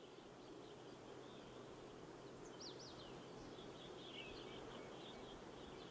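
Faint outdoor nature ambience: a soft steady hiss with a few brief, distant small-bird chirps, a quick pair of them near the middle.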